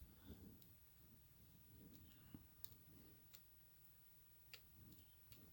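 Near silence, with a handful of faint ticks and light scraping from a steel pick working the pins of a pin-tumbler lock held under a tension wrench.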